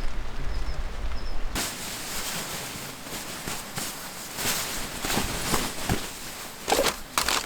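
A low steady rumble with a few faint high chirps, then, from about a second and a half in, rustling and scuffing with scattered knocks, like gear being handled.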